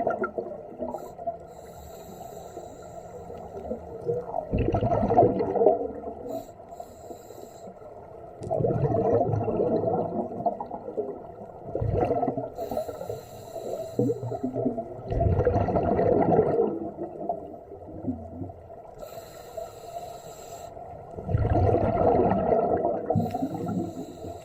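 Scuba diver breathing through a regulator underwater: a loud gurgling burst of exhaled bubbles about every three to four seconds, five in all, with quieter stretches between.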